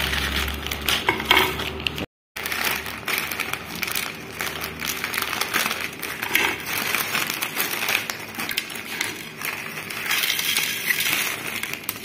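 Plastic instant-noodle wrappers crinkling as the packets are opened and emptied, with dry noodle cakes crackling as they are broken onto a ceramic plate. A brief dropout about two seconds in.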